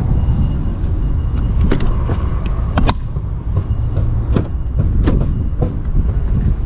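A steady low rumble with a series of sharp knocks and clicks, about half a dozen, the loudest about three seconds in.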